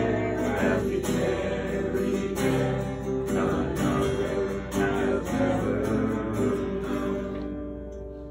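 Acoustic guitar strummed in a steady rhythm of chords, with no singing. Near the end the strumming stops and the last chord rings out and fades.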